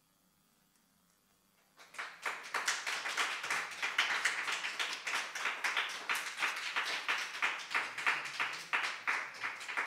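Audience applause that breaks out about two seconds in, after near silence.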